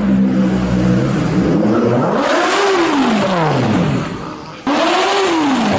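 Motorcycle engine running steadily, then revved up and back down twice, each rev rising and falling in pitch over about two seconds, with an abrupt break between the two.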